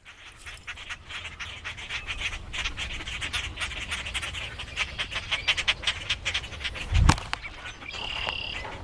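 Baby birds peeping amid rapid scuffling and clicking from a dog at them. There is a single thump about seven seconds in, and a short high peep near the end.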